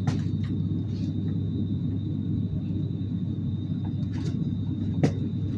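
Steady low rumble of a passenger train running, heard from inside the carriage, with a faint steady high whine and one sharp click about five seconds in.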